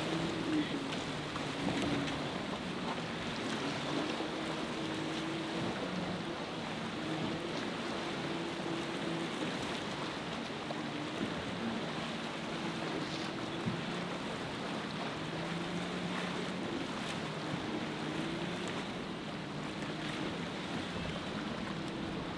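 Evinrude outboard motor running on a small boat in rough water, its engine note repeatedly rising and falling, over a steady noise of wind and waves.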